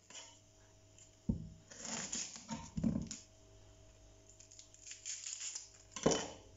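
Kitchen knife knocking on a wooden cutting board twice, near the start and near the end. In between, dry papery vegetable skin rustles and scrapes as a bulb is peeled by hand and knife.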